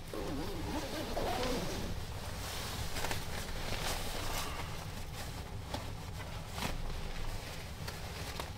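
A sleeping bag rustling as a person turns over in it and settles, with a short wavering hum-like sound during the first two seconds. A steady low rumble runs underneath.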